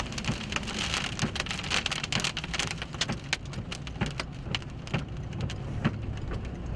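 Heavy rain pelting a vehicle, many sharp separate drop hits over a steady hiss, from a rain-wrapped tornadic thunderstorm.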